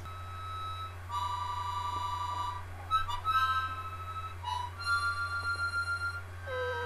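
Harmonica played in held chords and short phrases, the notes changing every second or so, with a quick run of repeated notes about five to six seconds in. Just before the end a boxer dog's howl begins underneath, sliding down in pitch.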